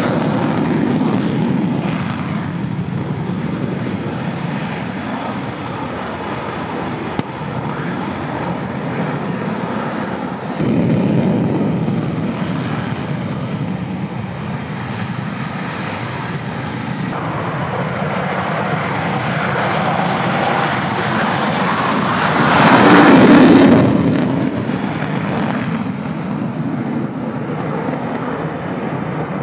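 Fighter jet engines on takeoff. First F-16D Fighting Falcons roll with afterburner. Then a Tornado IDS's twin RB199 engines run in afterburner, swelling to their loudest about two-thirds of the way in and then fading as it departs.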